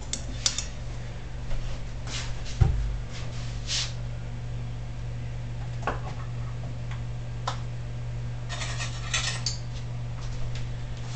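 Kitchen utensils clicking and knocking against a mixing bowl while batter is mixed, with one heavier knock about three seconds in and a short burst of rattling near the end. Under it runs a steady low hum from the stove.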